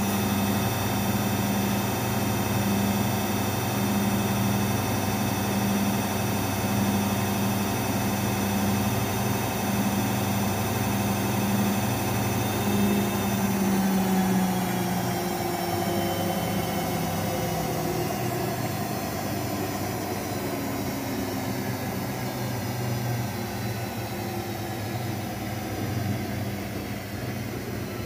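Daewoo DWD-FT1013 front-loading washing machine on its 1000 rpm spin: a steady motor hum and whine as the drum spins fast. From about halfway the whine falls in pitch as the drum slows.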